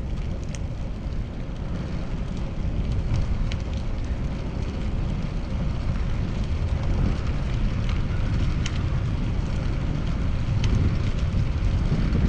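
Steady wind rumble on a chest-mounted GoPro's microphone while riding a bicycle, mixed with road and traffic noise, slowly growing louder.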